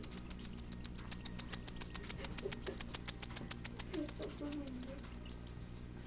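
Cockatiel chicks begging while being fed beak to beak by an adult cockatiel: a rapid, even run of high chirps, about nine a second, that dies away about three-quarters of the way through.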